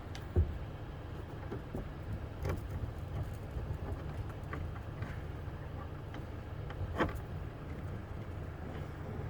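Lockout tool clicking and knocking against a pickup truck's door and interior during a car unlock, a few sharp knocks standing out (one about half a second in, another near seven seconds), over a steady low rumble.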